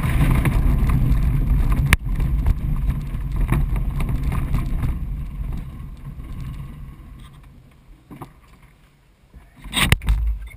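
Single Astir 77 glider rolling out on the ground after landing: the wheel and airframe rumble and rattle over the rough strip, fading steadily as the glider slows to a stop. A sharp click about two seconds in and a loud clunk near the end.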